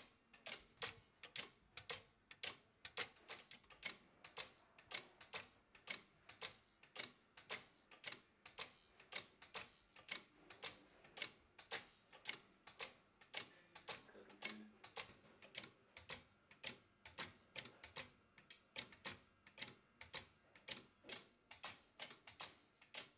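Meccano Elektrikit electromechanical binary counter clicking steadily as it switches, several sharp clicks a second, while its pulse circuit steps it automatically through the count.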